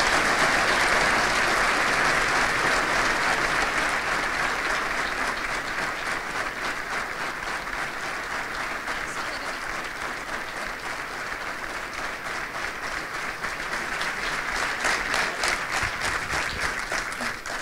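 A large audience applauding, strongest at first and easing off slightly, with single claps standing out near the end before it stops.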